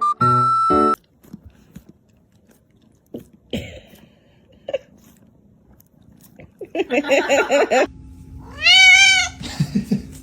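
Domestic cat meowing: one loud call that rises and falls in pitch about eight and a half seconds in, after a shorter wavering cry just before it. A brief run of whistle-like music ends within the first second.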